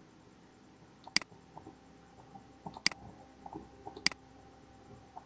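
Three sharp computer mouse clicks, a second or so apart, over faint room tone, as the mouse steps through the slides.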